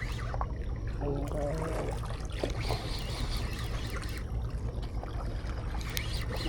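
Water trickling and lapping, under a steady low rumble of wind on the microphone, with a faint voice briefly about a second in.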